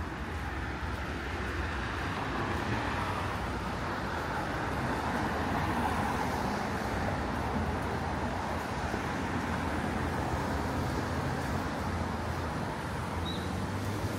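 City street traffic: a steady wash of car and engine noise with a low hum, swelling slightly around the middle.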